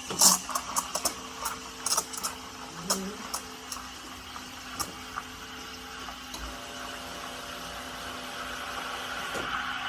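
Steam wand of a Schaerer Power Steam espresso machine frothing milk in a steel pitcher, hissing as air is drawn into the milk to make microfoam. Irregular sputtering ticks come through the hiss for the first few seconds. After that it smooths out, faint steady tones join in about six and a half seconds in, and the hiss grows slowly louder.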